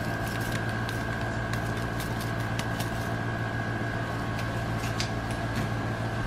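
Steady hum of a running appliance, with a constant low tone and a thin high whine over it, and faint scattered light ticks.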